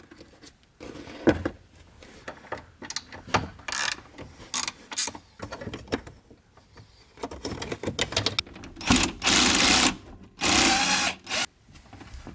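Clicks and knocks of tools and interior trim being handled, then two bursts of about a second each from a small power tool.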